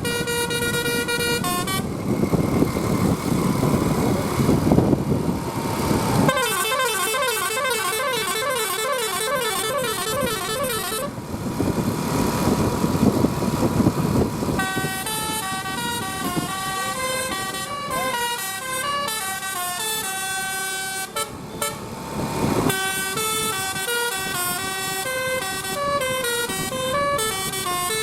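Multi-tone 'telolet basuri' musical bus horn playing quick stepped melodies in several long bursts, with loud rushing road noise between the tunes.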